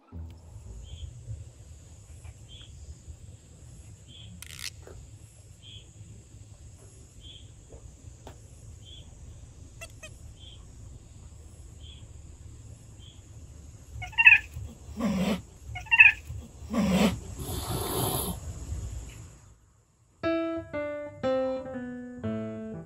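Two street cats in a brief fight: two short high-pitched cries, two heavy bursts and a drawn-out hiss, about fourteen to nineteen seconds in, over a low rumble. Light piano music starts about twenty seconds in.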